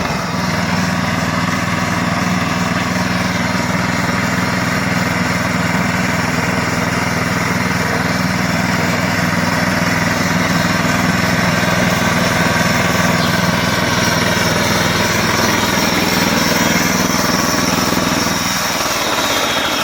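Gasoline engine of a Harbor Freight (Central Machinery) band sawmill running at a steady speed, with the machine's mechanical noise over it; the engine note drops away about a second before the end.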